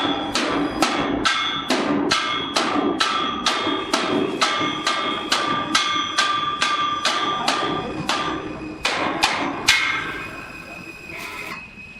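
Hammer striking steel in a boiler fabrication shop, a little over two blows a second, with the metal ringing after each blow. There is a brief pause about eight seconds in, and the hammering stops near the end.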